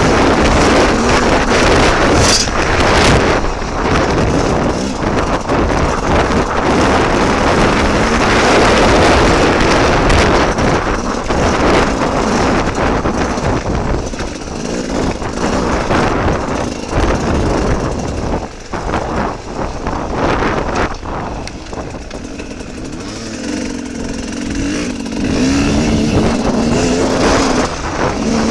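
Dirt bike engine running hard while riding a rough track, the note rising and falling with the throttle, under heavy wind noise. About three quarters of the way in it drops to a lower, quieter note, then picks up again near the end.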